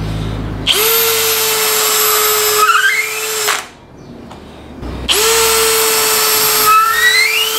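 Bosch GSB 18V-EC brushless cordless drill boring into a wooden block with a thin bit, in two runs of about three seconds each with a short pause between. Near the end of each run a higher tone rises in pitch.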